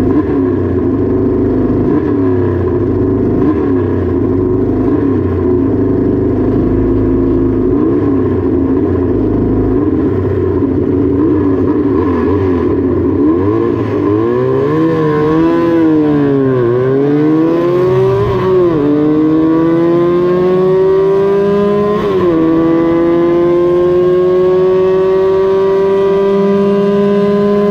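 Several small vintage Honda twin-cylinder racing motorcycles revving together, then one engine pulls away on its own, rising in pitch and shifting up through the gears three times.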